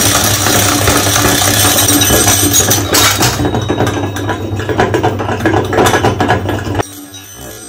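Meat grinder running on glass marbles, with a steady hum under many sharp clicks and rattles as the marbles are cracked and ground. The sound stops abruptly near the end.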